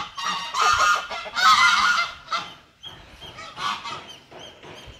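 Domestic geese honking: a run of loud, harsh honks over the first two seconds or so, then quieter calls mixed with faint high chirps.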